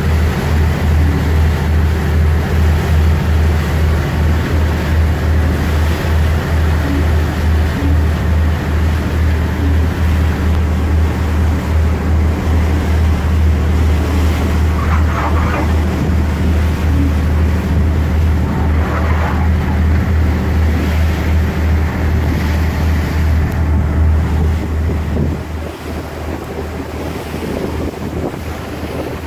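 Passenger ferry's engine droning low and steady, with wind buffeting the microphone and water rushing along the hull. The engine drone fades about twenty-five seconds in, leaving mostly wind and water.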